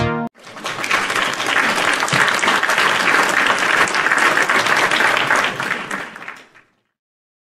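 Recorded applause: many hands clapping, swelling in just after a few final music notes cut off, then fading away about six and a half seconds in.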